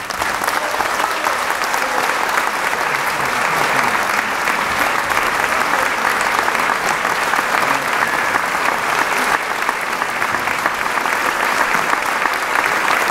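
Concert audience applauding steadily in a large hall after the final chord of an orchestral piece.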